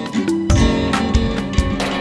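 Background music led by a plucked string instrument, with steady pitched notes and a regular percussion beat.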